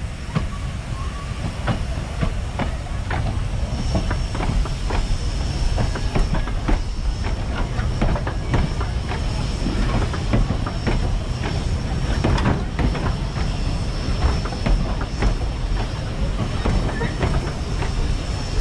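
Narrow-gauge passenger carriages rolling slowly past, their wheels clicking and knocking irregularly over rail joints, over the low rumble of a diesel locomotive. A thin high steady whine joins about four seconds in.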